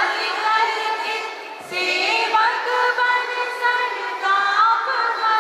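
A group of voices, children's among them, singing a song together in long held notes, with a brief pause between phrases about one and a half seconds in.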